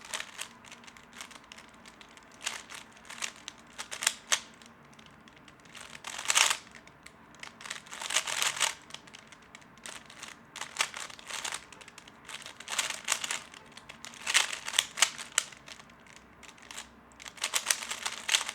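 3x3 speed cube being turned fast during a timed solve: its plastic layers click and clack in quick flurries broken by short pauses. The turning is not smooth, with a rough, clunky PLL finish.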